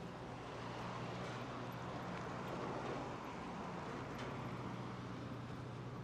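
Steady low machinery hum, two even tones that do not change, with a faint wash of noise over it.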